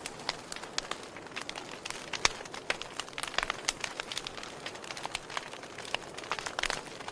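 Fire crackling: frequent irregular sharp pops and snaps over a steady hiss.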